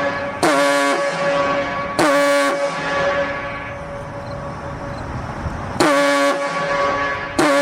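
Siren holding a steady tone, broken by short, loud horn-like blasts that each open with a quick swoop in pitch: two blasts close together, a longer pause, then two more.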